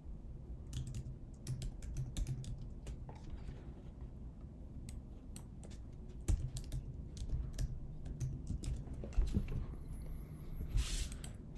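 Typing on a computer keyboard: irregular runs of keystroke clicks, with short pauses between them.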